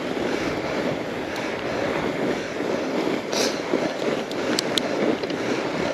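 Bike tyres rolling over a groomed snow trail on a descent, a steady rumbling crunch. There is a brief hiss about every three seconds and a few sharp clicks from the bike a little past halfway.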